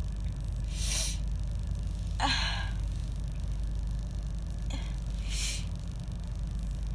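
A woman with a chest cold taking a sharp gasping breath and then sneezing harshly about two seconds in, followed by another gasping breath a few seconds later, over a steady low car-cabin rumble.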